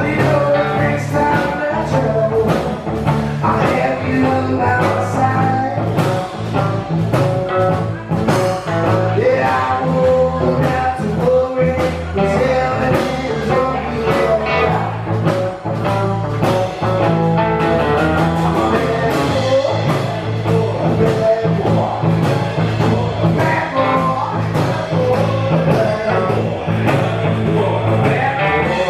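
Live blues-rock band playing a song, with a steady drum beat, a heavy bass line and electric guitar, and singing over it.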